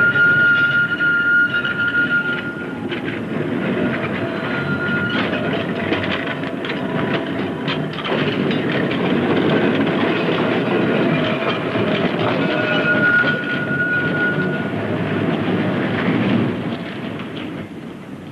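Glasgow Corporation electric tram running on street track: steel wheels rumbling and clicking over the rail joints, with a thin high wheel squeal near the start, briefly about five seconds in, and again about two-thirds of the way through. The sound fades near the end.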